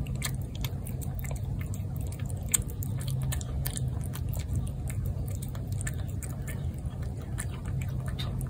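Feral tabby cat eating wet cat food from a plate: close, wet chewing heard as a run of small irregular clicks, with one sharper click about two and a half seconds in. A low steady rumble lies underneath.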